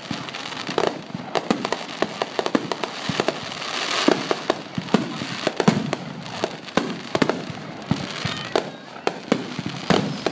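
Fireworks display: aerial shells bursting in a rapid, irregular string of bangs and crackles, several a second, without a break.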